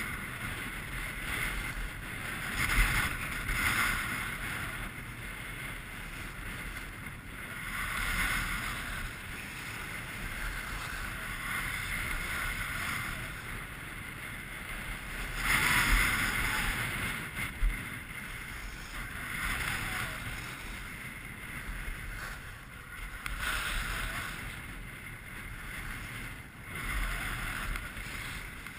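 Edges scraping and carving across groomed snow during a fast descent, a hiss that swells with each turn every few seconds, over wind rumbling on the action camera's microphone. One sharp click comes a little past the middle.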